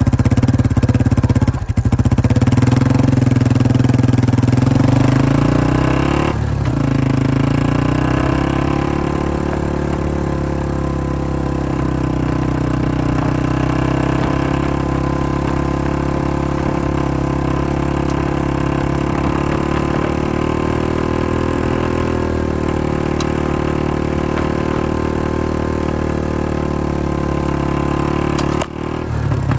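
Engine of the vehicle towing the sled running at a steady cruising speed, its pitch dipping and climbing back about six seconds in, then holding steady.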